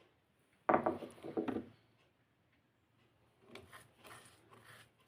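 Garlic and black peppercorns being crushed together by hand: a loud burst of grinding, crunching strokes about a second in, then quieter repeated strokes near the end.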